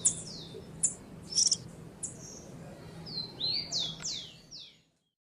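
Himalayan goldfinch singing: a few short, high chirps, then near the end a quick run of notes that each sweep down in pitch.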